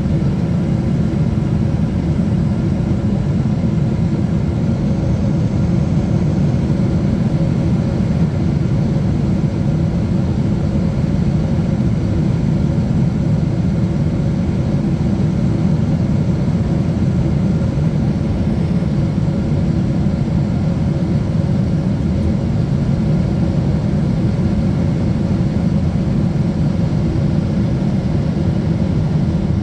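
Steady low-pitched engine and airflow noise inside the cabin of a Boeing 777 beside its wing engine during the descent approach, with faint steady hum tones and no change in thrust.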